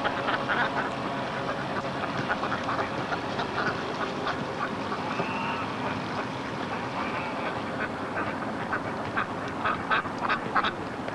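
Ducks quacking repeatedly in short calls, thickest near the end, over a steady background hum.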